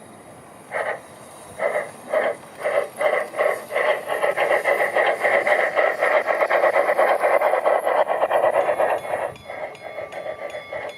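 Steam locomotive exhaust beats, starting as slow separate chuffs and quickening into a rapid steady chuffing as it gets under way, then easing a little near the end.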